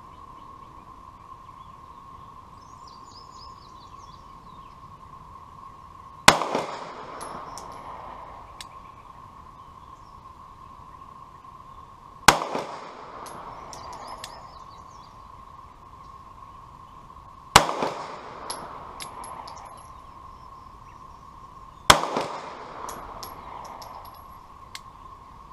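Four single gunshots from a Sig Sauer P238 .380 ACP pocket pistol, slow aimed fire spaced about five to six seconds apart, each shot echoing briefly across the range.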